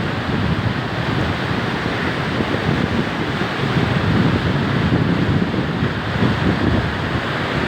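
Steady loud rush of flowing floodwater, with wind buffeting the microphone in a fluttering low rumble.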